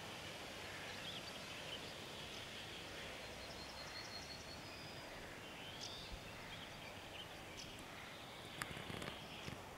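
Faint outdoor ambience of a meadow: a steady soft hiss with distant birds, a short run of high chirps about four seconds in and another call around six seconds. A few soft clicks come near the end.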